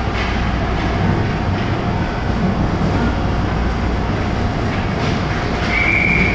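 Ice arena ambience during a youth hockey game: a steady rumble with the noise of play on the ice. Near the end, a short high steady tone rises above it for under a second.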